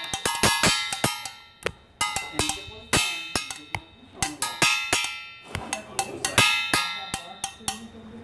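Rapid, irregular series of sharp metallic strikes, each ringing briefly, in clusters of several a second with short pauses between them.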